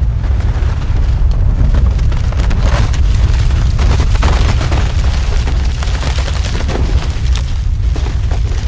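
Earthquake sound effect: a loud, continuous deep rumble with a dense stream of crackling, clattering impacts layered over it.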